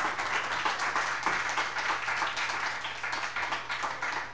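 Small audience applauding: dense, steady clapping from a roomful of people after a song.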